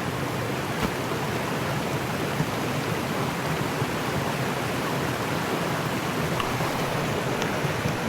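Mountain stream water rushing in a steady, even flow.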